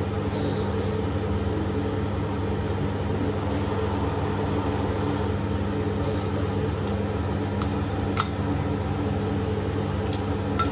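Steady electrical hum of an induction cooktop running with its cooling fan. A few light metallic clicks of a spoon against a steel spice tin come about two thirds of the way in and near the end.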